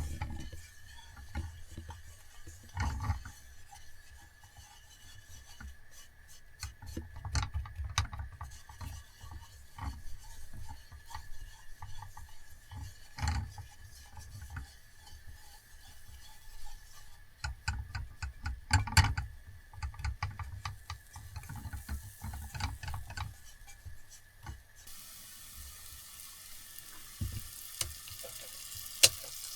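Food being prepared: a utensil stirring and scraping in a pan or bowl, with scattered clicks and knocks. About 25 seconds in, a steady hiss sets in.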